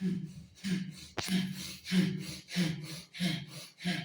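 A man breathing hard and rhythmically through a lung-pumping exercise, about one and a half forceful breaths a second, each a short voiced huff. A single sharp click comes about a second in.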